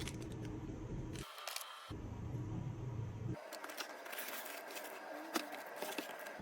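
Keys clacking on a darkFlash GD100 mechanical keyboard: irregular sharp keystroke clicks of typing, over a low background hum that cuts in and out.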